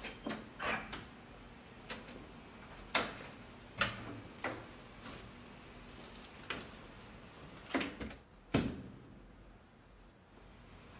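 A series of short, irregular knocks and clicks, about eight over nine seconds, over low room noise.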